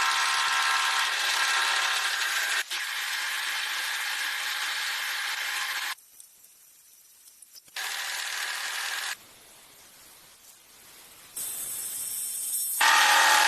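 Drilling and machining noise from powered metalworking tools, in several short clips that cut in and out suddenly, with two quieter stretches between them.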